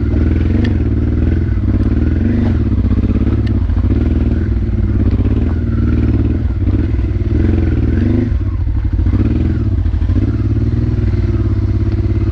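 Honda Transalp's V-twin engine pulling the bike up a salt-crusted track, the engine note rising and falling every couple of seconds as the throttle is worked. A couple of sharp clicks come through, about a second in and again a few seconds later.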